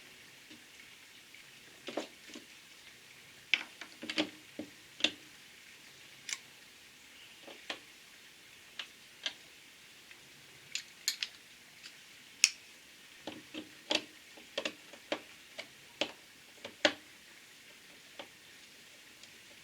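Irregular sharp clicks and taps of hard plastic and metal: a dead jigsaw and hand tools being handled.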